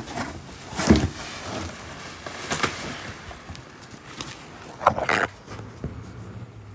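Handling noise from a phone being moved about: a few sharp knocks and bumps, the loudest cluster about five seconds in, over low rubbing and rustling.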